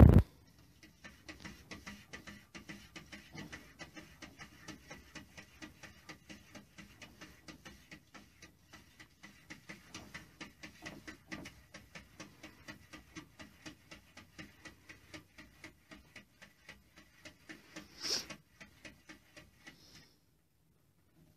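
A short loud knock, then a cat's paws tapping and patting on mirror glass in a quick, fairly even rhythm of about three or four taps a second. A brief, sharper, higher-pitched sound comes a few seconds before the end.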